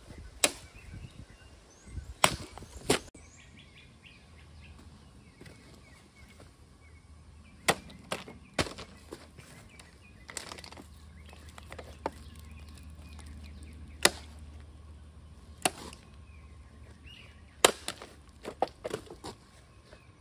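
Fixed-blade karambit knife (5.11 Talon) chopping and slashing in test cuts at a plastic water bottle on a wooden tree stump: about a dozen sharp, separate strikes, spread out, with a quick cluster of them near the end.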